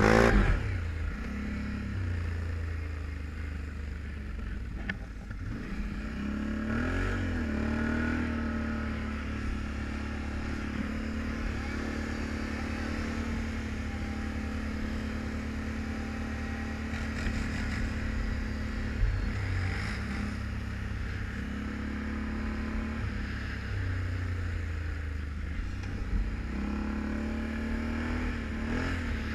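Can-Am Renegade 1000 ATV's V-twin engine running steadily under way, heard from the rider's seat, with a brief rise and fall in revs about seven seconds in.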